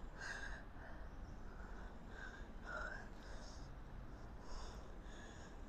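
A woman's faint, quick, heavy breathing, a short breath roughly every half second. She is winded from the exertion of a set of dumbbell deadlifts.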